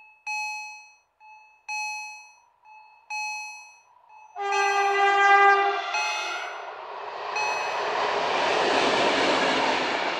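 Level-crossing warning bell ringing in evenly spaced strokes. About four and a half seconds in a locomotive horn sounds a long blast, louder than the bell, and then the rushing noise of an approaching freight train builds up.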